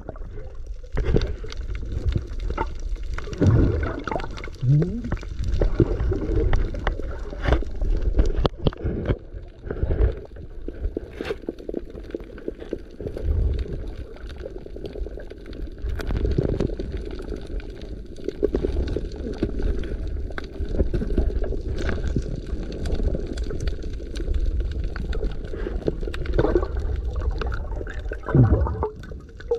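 Water sloshing and gurgling steadily, with a few scattered light knocks.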